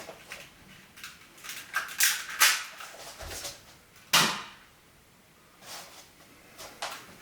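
Sharp plastic clicks and clacks from a low-power airsoft pistol being handled and cocked. There are two close clacks about two seconds in and a louder one just after four seconds.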